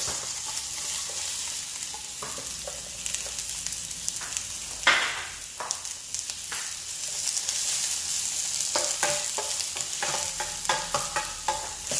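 Sliced onions sizzling in hot oil in a stainless steel divided pot while a metal ladle stirs them, clinking and scraping against the pan. There is a sharp clink about five seconds in and a run of quicker clinks near the end.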